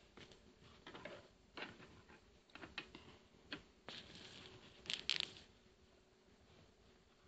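Pencil scratching on sketchbook paper in short, irregular strokes, with a few small clicks and two louder scrapes about five seconds in.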